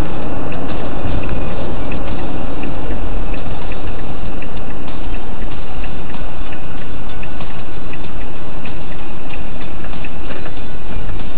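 Road and engine noise inside a moving car as picked up by a dashcam microphone: a loud, steady rumble with frequent small ticks or rattles over it.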